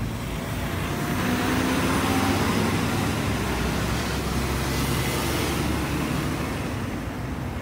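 Road traffic with engines rumbling steadily; one vehicle passing swells louder about two seconds in and then slowly fades.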